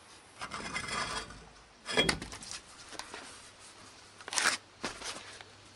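Rear dual wheel and tire of a 2000 Chevy 3500 dually being worked off the wheel studs: scraping and rubbing of the wheel against the hub, with a loud knock about two seconds in and another sharp clatter about four and a half seconds in.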